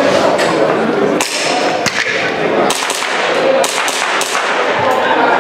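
Airsoft pistol firing a string of sharp shots, many of them in quick pairs, over the steady murmur of a busy hall.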